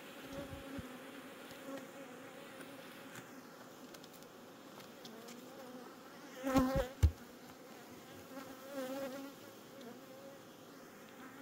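Honey bees buzzing around an opened hive, a steady drone. Twice, about six and a half and nine seconds in, a bee flies close and its buzz swells and wavers. The first pass ends with a single sharp tap, the loudest moment.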